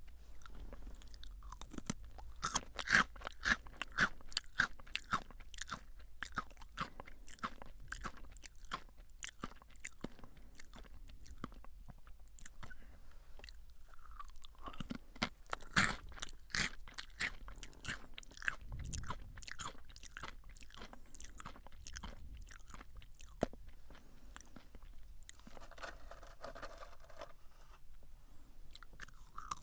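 Close-miked crunching and chewing of Jagabee lightly salted potato sticks: a run of crisp crunches, thickest about two to five seconds in and again around fifteen to seventeen seconds.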